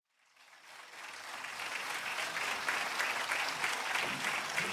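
Audience applauding, fading in from silence over the first second or so, then steady.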